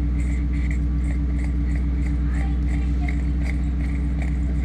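Steady low mechanical hum from a running motor, with a faint regular pulsing about three times a second.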